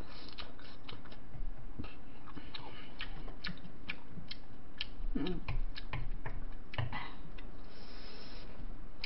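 Wooden spoon clicking and scraping against a glass bowl of bibimbap as it is scooped, with close-miked eating clicks between strokes. A short hummed sound about five seconds in.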